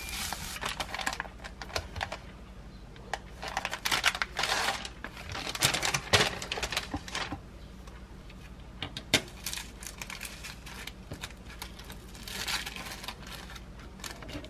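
Plastic packaging crinkling and rustling, with light taps and clicks, as plastic-wrapped laver sheets and a cardboard sheet from a triangle gimbap kit are handled on a wooden cutting board. The crinkling is busiest over the first several seconds, stops, and comes back briefly near the end.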